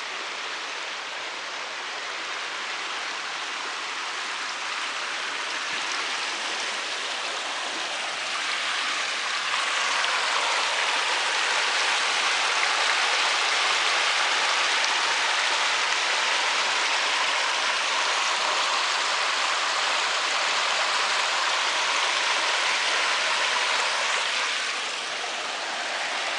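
Stream water running, a steady rushing hiss that grows louder about a third of the way in and drops back near the end.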